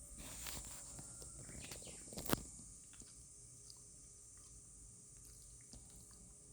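Dog chewing, a few crunchy bites and clicks in the first two and a half seconds, the sharpest about two seconds in. A steady high insect drone runs behind it.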